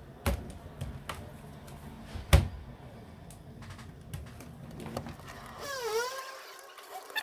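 A Casper C600 laptop handled on a rubber work mat: a few light knocks, the loudest about two seconds in as it is turned over and set down upside down, then faint ticks of a small screwdriver working the bottom-case screws. Near the end, a faint gliding tone rises and falls.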